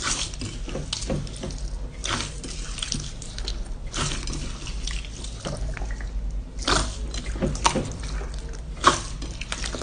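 Hands squeezing and stretching slime in a bowl: wet squishing with irregular sharp pops and clicks, a few of them louder, near the start and in the last three seconds.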